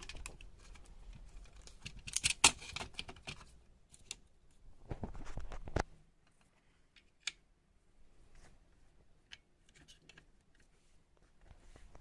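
Clicks, taps and light clatter of laptop parts, screws and tools being handled. The clicks come thickest about two seconds in, then a brief scrape, then a sharp click and a few scattered ticks.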